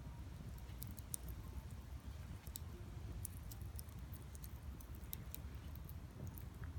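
Wood fire crackling in a small folding grill: scattered sharp little pops and ticks over a low steady rumble.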